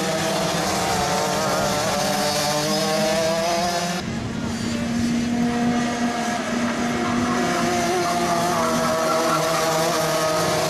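Two-stroke racing kart engines running hard through corners, the pitch wavering up and down as the drivers work the throttle. The sound changes abruptly about four seconds in, to a steadier engine note.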